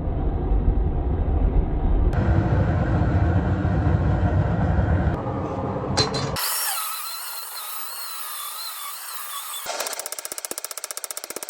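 Forge running with a low, steady roar for about six seconds. After a cut comes a hiss with a wavering whine, and near the end a fast, evenly spaced run of sharp knocks.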